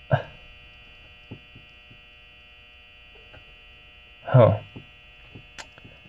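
Faint light clicks of small lock pins being handled in a brass mortise-cylinder plug during rekeying, over a steady electrical hum. A short voiced grunt from the man comes at the start and again, louder, about four seconds in.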